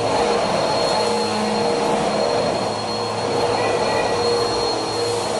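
Corded upright vacuum cleaner running steadily as it is pushed over a hardwood floor: a constant motor noise with a high whine.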